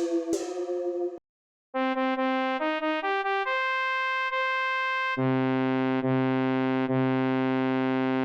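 Electronic synthesizer sound effects: a quick run of plucked synth notes, a short gap, then a stepped sequence of held electronic tones, and from about five seconds in a loud, buzzy sustained synth tone struck again twice.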